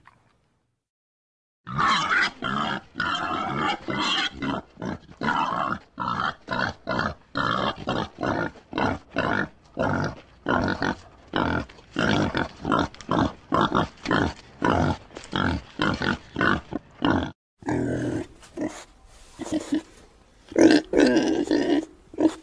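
Pig grunting in a steady run of short grunts, about two a second. After a brief break near the end, a louder burst of grunts follows.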